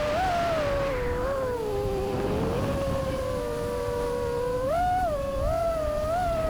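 FPV quadcopter's brushless motors and props whining, the pitch sliding down about a second in, holding fairly steady, then rising again near the end as the throttle changes, over wind rush.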